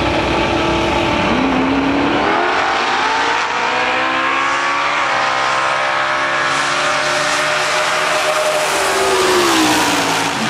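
Drag radial race cars launching and running down the drag strip at full throttle. A steady engine note jumps up in pitch about a second and a half in, climbs through gear changes, holds at high revs, then falls away near the end as the drivers lift off.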